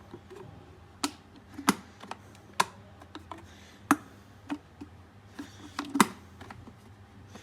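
Sharp plastic clicks, about a dozen and irregularly spaced, from a Prestige electric kettle's on/off switch and lid catch being worked by hand.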